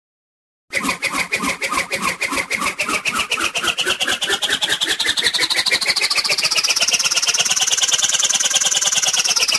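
Cartoon sound effect: a fast-pulsing, engine-like whirr that starts abruptly about a second in. Its pitch climbs slowly for several seconds, then begins to fall near the end.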